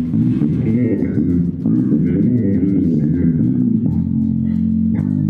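Elrick Gold Series 5 five-string bass guitar being played: a quick run of short low notes, then longer held notes from about four seconds in.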